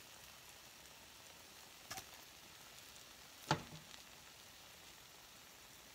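Faint, steady sizzle of an omelet cooking in a hot frying pan, with a light click about two seconds in and a sharper clink of a metal spoon against the pan about three and a half seconds in as avocado is laid on the omelet.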